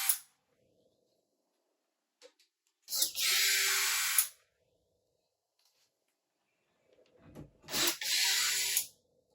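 Cordless drill-driver running in two short bursts of about a second each, a few seconds apart, driving screws while a speaker grille assembly is fitted.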